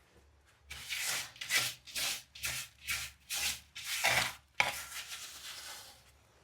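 Rough scraping strokes, about eight in quick succession at roughly two a second, then one longer stroke near the end that trails off.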